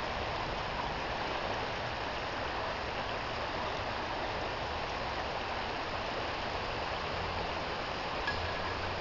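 River water flowing steadily, an even rushing hiss with no change, and one small click near the end.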